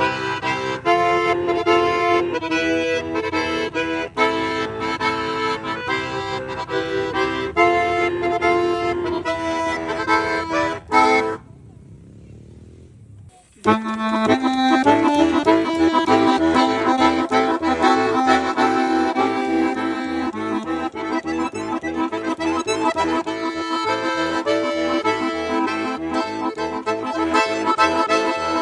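Bayan (Russian button accordion) playing an instrumental passage with chords and melody, the close of one song. About eleven seconds in it stops for about two seconds, then a new tune starts on a held low note and runs on.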